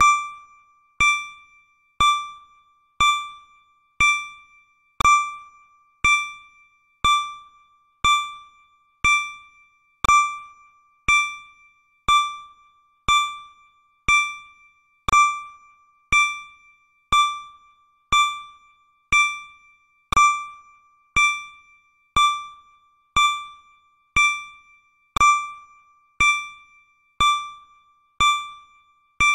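Electronic countdown-timer ding sounding once every second, the same pitch each time, each one struck sharply and fading within about half a second: the timer marking off each second.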